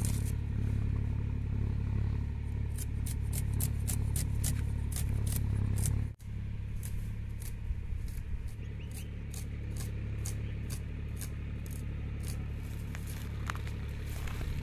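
An onion being chopped with a blade: light, quick cutting clicks, several a second, over a steady low hum.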